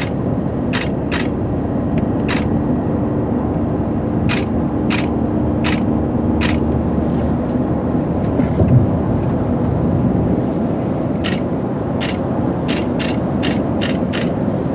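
Steady road and engine rumble inside a moving car's cabin, with a dozen or more sharp camera-shutter clicks scattered irregularly, several in quick runs near the end, as a series of photos is taken.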